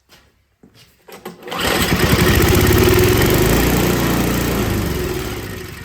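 Tecumseh 5 hp single-cylinder snowblower engine firing on starting fluid sprayed into the intake: after a few clicks it catches about a second and a half in, runs loudly for a few seconds, then fades and dies down near the end. It runs only on the starting fluid, pointing to a carburetor fault.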